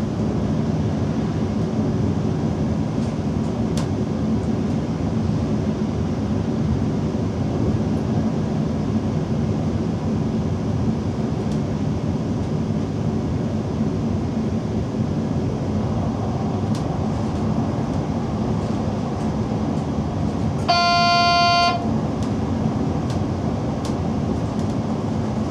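DB Class 425 electric multiple unit under way, heard from the driver's cab: steady rolling and running noise, with one horn blast of about a second near the end.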